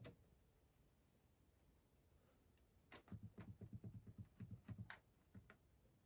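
Faint clicking of a Beko WML7163O4LP1 washing machine's controls as the programs are stepped through: one click at the start, a quick run of clicks for about two seconds midway, then one more click.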